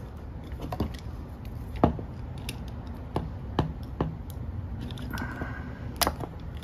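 Utility knife blade slicing through a heat-softened PEX-A expansion ring on the pipe. Scattered small clicks and scrapes of the blade on the plastic, with a brief squeak about five seconds in.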